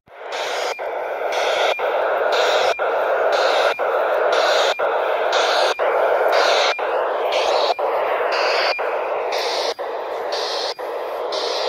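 Weather radiosonde telemetry heard through a handheld scanner's speaker on 405.5 MHz: a steady rasping hiss, with a click about once a second as each data frame begins.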